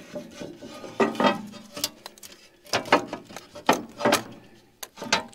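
A steel cover panel on a bulldozer being worked into place: about half a dozen sharp metal clanks and knocks, each with a short ring.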